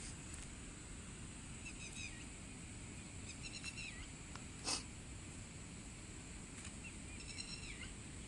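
Three short runs of high chirping calls from an animal, each falling in pitch at its end, over a steady background hiss, with one sharp click about halfway through.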